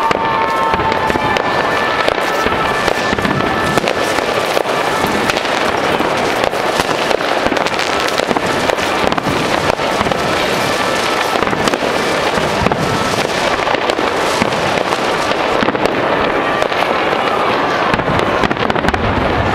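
Fireworks going off without pause: a dense, continuous barrage of bangs and crackles, with a few faint whistling tones in the first seconds.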